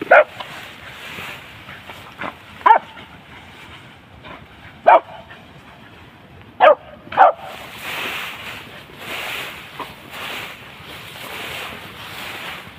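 Hunting dog barking on the chase: five single barks over about seven seconds, the last two close together. After that a steady rustling noise with no barks.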